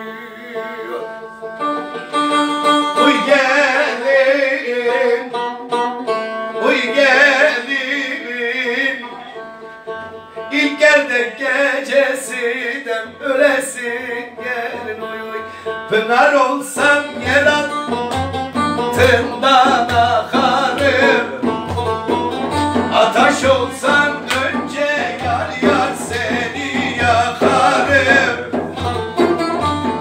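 A man sings a Turkish folk long-held, free-rhythm vocal line over a plucked cümbüş, a banjo-like long-necked lute. About sixteen seconds in, the song proper starts and the playing falls into a steady, quicker rhythm under the voice.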